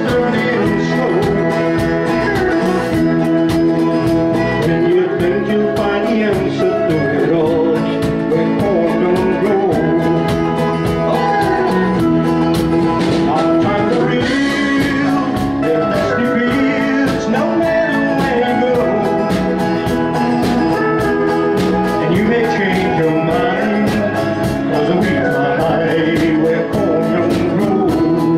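Live country band playing a country song: acoustic guitar, electric bass, mandolin and pedal steel guitar over a steady drum beat, with singing.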